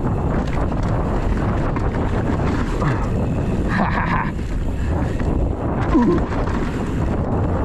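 Wind buffeting the helmet or chest camera's microphone and a mountain bike's tyres rumbling over a packed-dirt trail on a fast descent, with the bike's frame and chain rattling over bumps.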